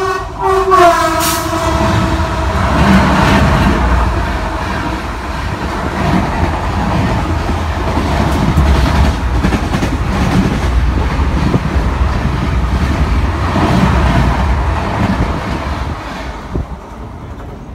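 Passenger train running past on the adjacent track: its horn drops in pitch as it goes by and cuts off about two seconds in. Then the coaches' wheels rumble and clack over the rail joints, fading near the end as the last coach passes.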